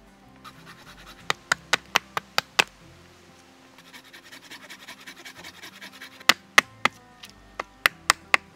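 A heavy knife chopping into the bark of a standing wooden post: a quick run of about seven sharp strikes, then a spell of rasping as bark is scraped and shaved off, then another run of strikes near the end. Background music with sustained tones plays underneath.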